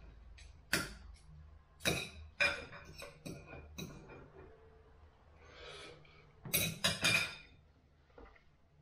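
Knife and fork clinking and scraping on a ceramic dinner plate while food is cut: several sharp clinks about a second apart, then a quick cluster of louder clinks about seven seconds in.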